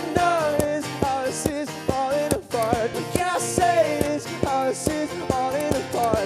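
Live acoustic rock music: strummed acoustic guitar on a steady beat, with a wavering melody line over it.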